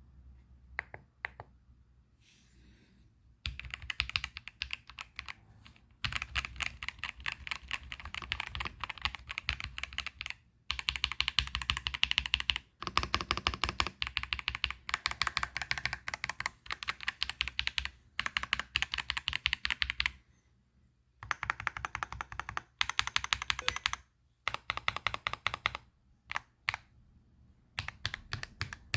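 Typing on a Keychron mechanical keyboard with red linear switches. A few separate keystrokes come first, then fast runs of key presses broken by short pauses.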